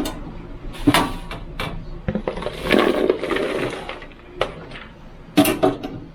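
A deep-fryer basket being handled, giving a run of sharp metal clicks and knocks, with about two seconds of noisy rattling in the middle.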